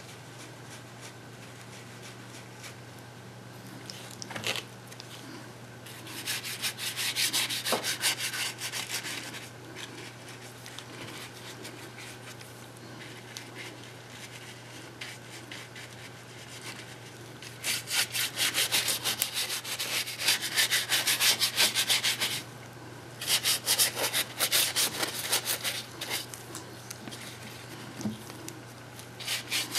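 Paintbrush dry-brushing paint onto a papier-mâché coconut: rapid scratchy scrubbing strokes in several bursts of a few seconds each, over a low steady hum.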